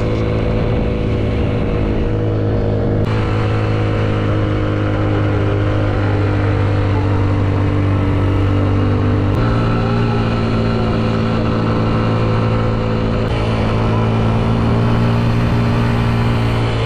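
Honda dirt bike's engine running steadily under way. The engine note holds level, then jumps to a new pitch a few times.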